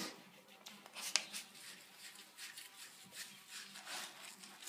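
Soft, repeated swishing of hands scrubbing a small dog's wet coat in a stainless steel sink, with a sharp click about a second in.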